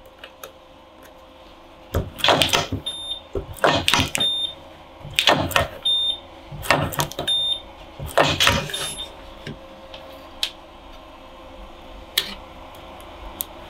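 Battery spot welder welding nickel strips onto NiCd/NiMH cells: five pairs of sharp clacks about a second and a half apart, each followed by a short high beep. A couple of single clicks come later.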